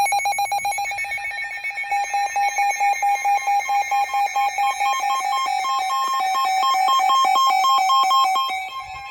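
Weather alert radio's electronic alarm beeping rapidly, about eight shrill beeps a second, shifting between two pitches midway and fading near the end. The alarm signals an incoming warning broadcast.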